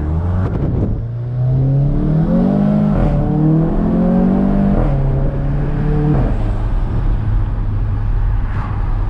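VW MK7 GTI's turbocharged 2.0-litre four-cylinder, fitted with an aftermarket downpipe and turbo inlet elbow, pulling hard under full acceleration, heard from inside the cabin. The engine note climbs and drops back at two quick DSG upshifts, then eases off to a steady lower drone about six seconds in.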